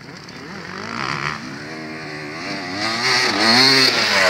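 Motocross dirt bike engine revving up and down again and again as the throttle is worked, getting louder as the bike comes closer.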